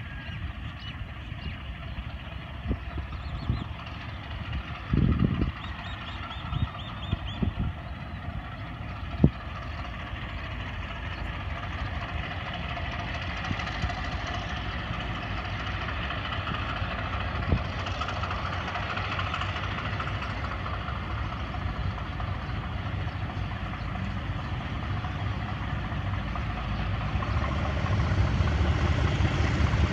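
Pakistan Railways PHA-20 diesel locomotive 8303 running under power as it pulls a train out of the station, a steady engine rumble that grows louder over the last few seconds as it approaches. A few short thumps come about five to nine seconds in.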